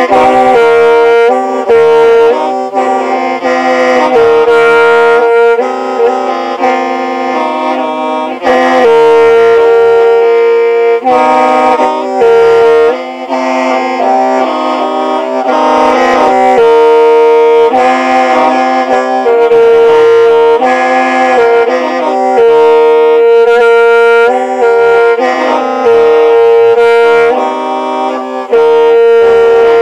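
Hmong qeej, a bamboo free-reed mouth organ, playing a melody of shifting notes over a steady held drone, several pipes sounding at once.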